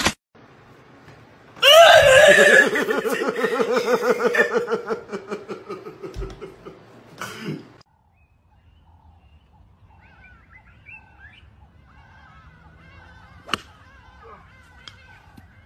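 A person laughing hard for several seconds, a pulsing laugh that tails off. Later, faint chirping and a sharp crack of a golf club striking the ball near the end.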